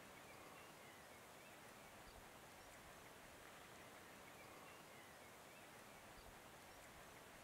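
Near silence: faint steady outdoor hiss, with a few faint high chirps scattered through it.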